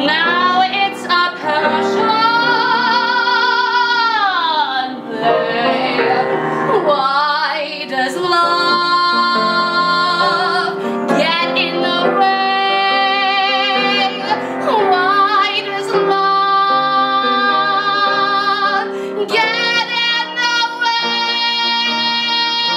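A woman singing a musical-theatre ballad with a wide vibrato and several long held notes, accompanied on grand piano.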